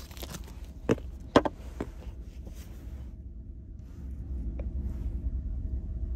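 Plastic string-cheese wrapper crinkling as the cheese is peeled out, with a few sharp crackles in the first two seconds. Under it runs a steady low rumble that grows a little louder about four seconds in.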